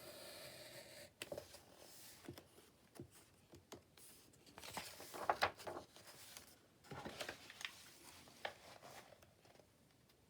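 Paper and craft pieces being handled on a work table: intermittent rustling with light taps and clicks, busiest about halfway through.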